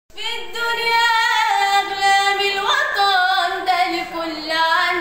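A girl singing solo and unaccompanied, holding long notes that bend and waver in pitch.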